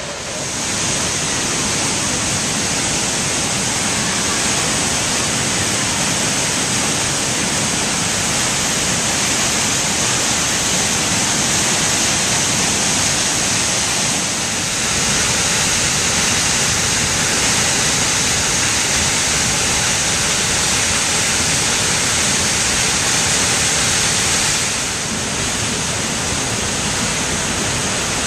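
Large waterfall on the Genesee River: a steady rush of falling water, a little louder for a stretch from about halfway in until near the end.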